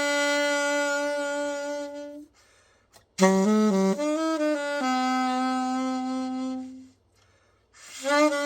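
Alto saxophone played solo in slow phrases. A held note fades out about two seconds in. After a short pause a new phrase starts and ends on a long held low note. A second pause follows, then the next phrase begins near the end.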